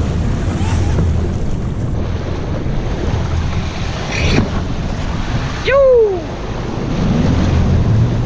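Wind buffeting the microphone over the wash of surf. About six seconds in there is one short, loud cry that falls in pitch.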